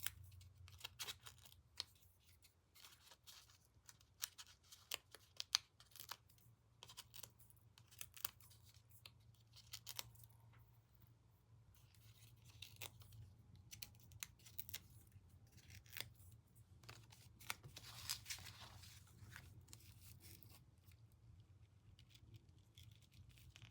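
Faint, irregular small clicks and crackles of paper backings being peeled off foam adhesive dimensionals and the pieces being handled.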